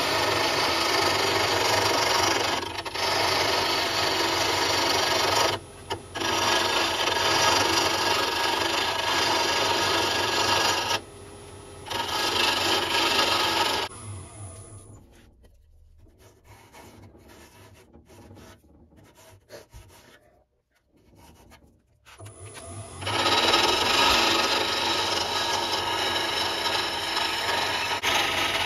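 A turning tool cutting a spinning wooden handle blank on a wood lathe, a steady rough scraping hiss with short breaks as the tool comes off the wood. Just past the middle the cutting stops and it goes much quieter for about nine seconds, then the cutting starts again.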